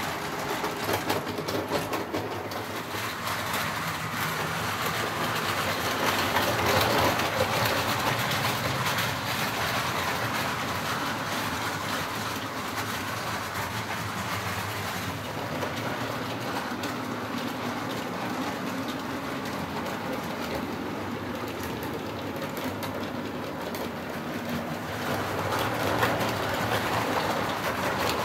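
Model train running on the layout's track: a steady rumble of the motor and wheels with fast clicking over the rail joints, louder about seven seconds in and again near the end as it passes closer.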